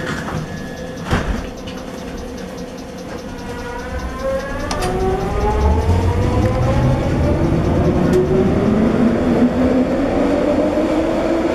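Metro train accelerating through a tunnel: a rising whine from the traction motors climbs steadily in pitch while the rumble of the wheels on the rails builds. A single clunk sounds about a second in.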